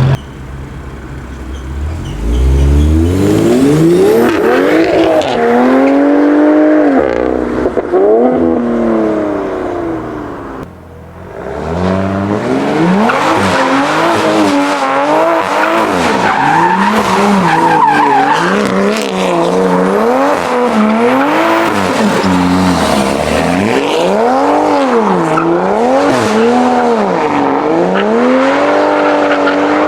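Modified Toyota GR Supra engine revved hard, its pitch rising and falling over and over, with tyres squealing. The revs fall away and the sound drops briefly about eleven seconds in, then climbs back to steady repeated revving.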